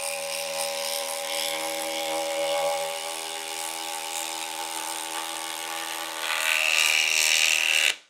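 Milwaukee M18 impact driver hammering a 10-inch lag bolt into timber: a steady, rapid rattle of impacts that gets louder and sharper about six seconds in, then stops suddenly.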